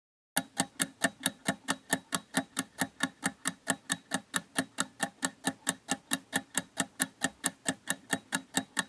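Quiz countdown-timer sound effect: a clock-like ticking, about four sharp ticks a second, starting about half a second in.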